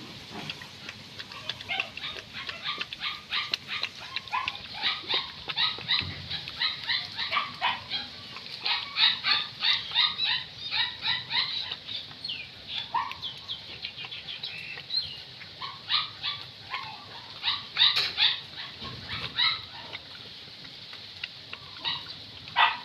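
A puppy eating wet rice from a bowl: quick, wet chewing and lapping smacks, several a second, going on steadily.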